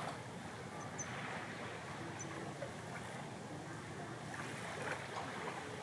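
Sea water washing and lapping at the shore in a steady hiss, with a few soft swells of small waves breaking about four and five seconds in.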